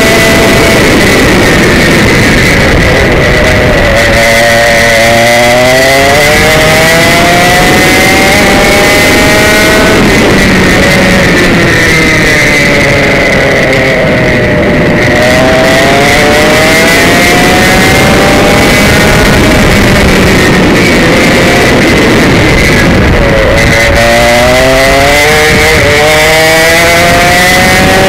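Komet K77 two-stroke kart engine at racing speed, loud and close. Its pitch falls as the kart slows for corners, about 4, 14 and 24 seconds in, and climbs again down each straight.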